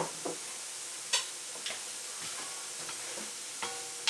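Chicken hearts and gizzards sizzling in a frying pan with a steady hiss, while a utensil stirs them and knocks against the pan about six times. The later knocks ring briefly, like metal on metal.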